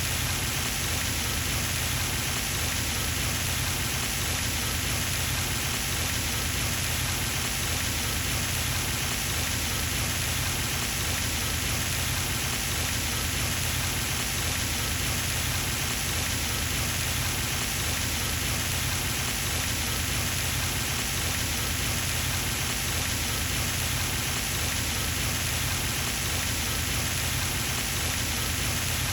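Pond fountain splashing: a steady, even patter of falling water onto the pond's surface.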